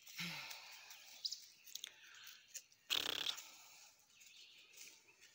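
Quiet woodland ambience with a few faint bird chirps and a brief rustle or scuff about three seconds in.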